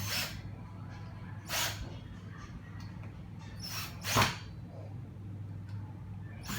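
Hitachi DS10DL cordless drill-driver running in a few short bursts as it drives screws back into a power drill's housing. The loudest burst comes about four seconds in.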